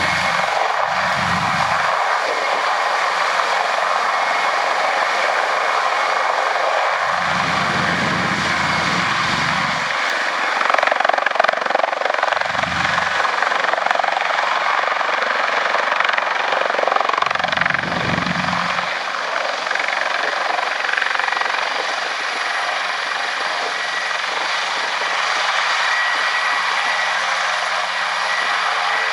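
Airbus H225M Caracal military helicopter's twin turboshaft engines and rotors running steadily and loudly, a continuous dense whooshing noise.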